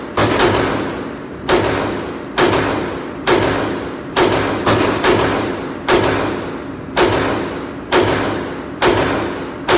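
Glock 19 9mm pistol firing at a steady pace of about one shot a second, with a couple of quick double shots, about a dozen in all. Each shot rings out and dies away with the echo of an indoor range.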